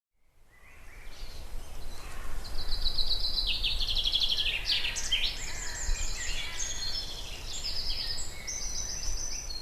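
Woodland dawn-chorus-style birdsong: several songbirds singing at once, with quick repeated trills and short phrases overlapping, over a low steady rumble. It fades in during the first second.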